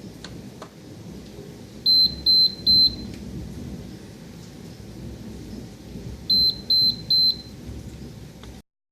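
Liebherr KGT 4046 fridge-freezer's electronic alarm beeping in two groups of three short, high beeps, signalling the F2 error from a faulty temperature sensor in the upper compartment. The beeps sound over a steady low rumbling noise, and everything cuts off suddenly near the end.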